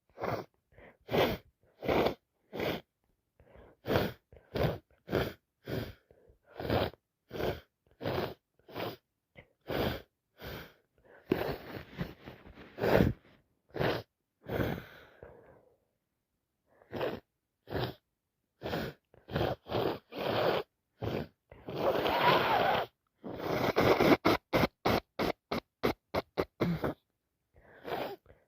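A person with a head cold sniffing hard through a congested nose: runs of short sharp sniffs about two a second, broken by two longer, noisier rushes of air from nose-blowing, and a quicker run of sniffs near the end.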